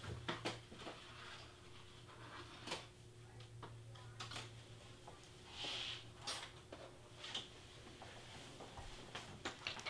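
Faint scattered clicks and knocks, with a brief rustle about six seconds in, over a steady low hum: small craft supplies being picked up, handled and set down at a shelf.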